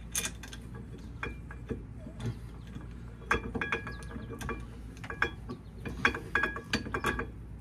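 Scattered metallic clicks and clinks as a disc brake caliper is worked back onto a VW Beetle's front spindle by hand, some with a short ring, busier in the second half.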